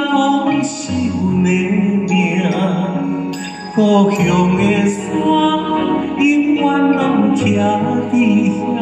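Male vocalist singing a slow ballad live into a handheld microphone, with live band accompaniment underneath.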